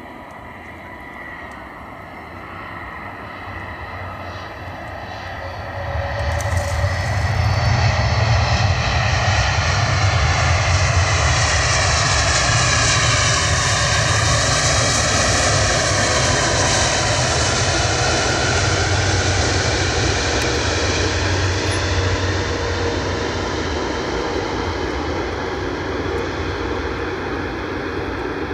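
Twin-engine widebody cargo jet landing and rolling out along the runway. The engine noise builds, jumps sharply about six seconds in as the jet touches down and passes, stays loud with whining tones that bend in pitch as it goes by, then fades slowly as it moves away.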